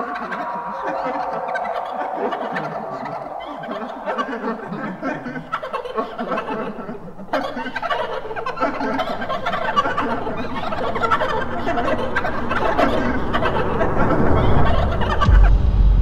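Horror-film sound design: a dense, warbling, jittery texture that breaks off briefly about seven seconds in and then resumes, with a deep rumble swelling underneath near the end.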